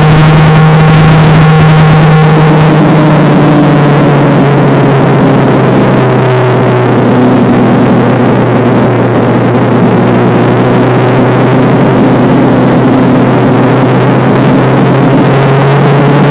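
Motorcycle engine running at a steady cruising speed, a loud even drone that holds almost the same pitch throughout, mixed with rushing wind and road noise.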